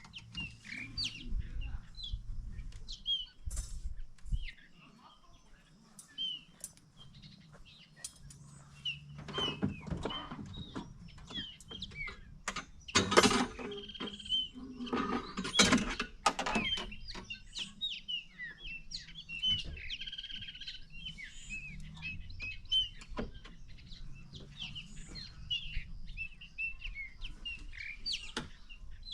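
Wild birds chirping and calling with many short, quick notes throughout, with a few louder brief noises around the middle.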